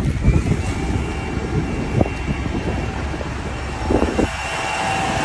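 A steady low rumble with faint, steady engine-like tones running through it.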